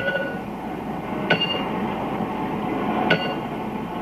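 Sharp metallic clanks, metal struck on metal, each ringing briefly, four of them about every one and a half to two seconds, over a steady hissing rumble from a steam locomotive's surroundings.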